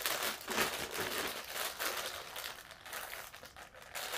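Thin plastic packaging bag crinkling and rustling as it is handled and pulled open, in irregular rustles that thin out in the second half.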